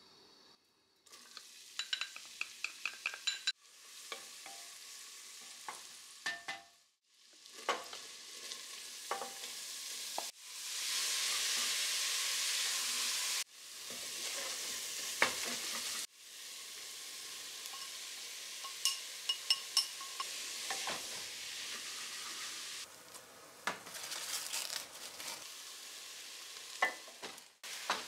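Butter, then minced vegetables and ground meat sizzling as they fry in an aluminium pressure cooker, while a wooden spoon stirs, scrapes and taps against the pot. The taps ring briefly off the metal. The sizzle changes level abruptly several times where the shots change.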